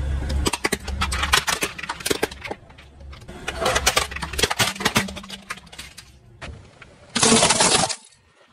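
Plastic toys cracking and snapping under a rolling car tyre, many sharp cracks in quick succession over the first few seconds, above the low hum of the car's engine. About seven seconds in, a loud rush of noise lasts under a second.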